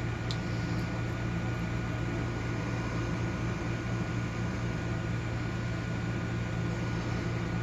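A steady low motor hum with a thin high tone held over it, the running sound of an appliance motor in the room, and one light click just after the start.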